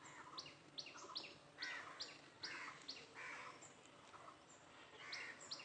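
Faint bird chirping: short, sharp chirps repeating about twice a second, with a lull in the middle.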